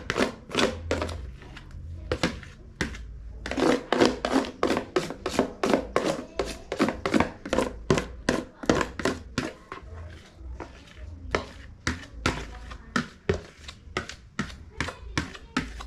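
Cake batter being beaten by hand with a spoon in a metal pot (sufuria), a fast, regular run of knocking strokes against the pot at about three a second.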